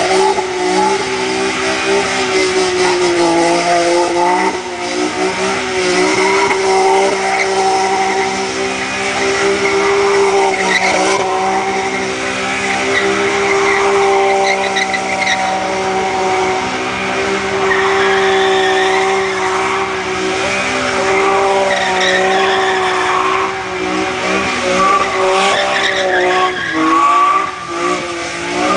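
BMW E46 M3 CSL's straight-six held at high, nearly steady revs through continuous donuts, with tyres squealing and scrubbing on wet tarmac. The revs dip briefly about four seconds in and waver again near the end.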